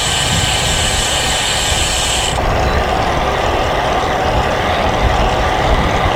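Wind buffeting a GoPro microphone on a moving road bike, a steady low rumble mixed with tyre noise. A high steady buzz runs through the first two seconds or so and cuts off suddenly.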